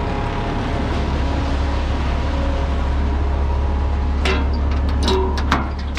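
Concrete mixer truck's diesel engine idling steadily, with several sharp metal clanks near the end as the steel discharge chutes are handled.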